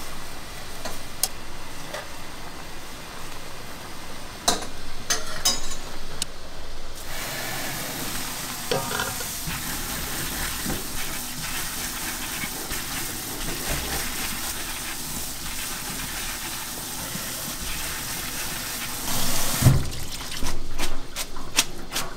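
Kitchen cooking sounds: a few clinks and knocks of utensils, then a steady hiss that starts suddenly about seven seconds in and cuts off abruptly after about twelve seconds, followed by louder clattering near the end.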